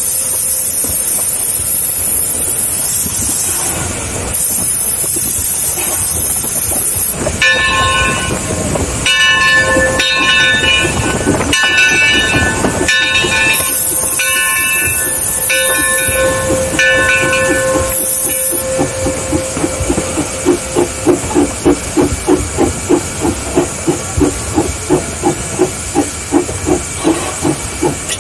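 A Mason Machine Works 0-6-4T Mason Bogie steam locomotive heard from inside its cab: steam hissing on and off, with some pitched sounds in the middle. From about twenty seconds in, the exhaust chuffs steadily at about two beats a second.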